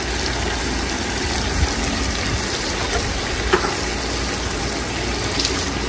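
Goat meat browning in masala in a large aluminium pot over a gas burner: a steady, even hiss with a low rumble under it and a couple of faint clicks.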